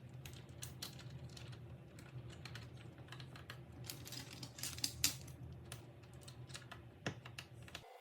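Typing on a Keychron K6 mechanical keyboard with Gateron Brown switches: a fast, irregular run of key clicks with a few louder strokes about halfway through, over a low hum that stops just before the end.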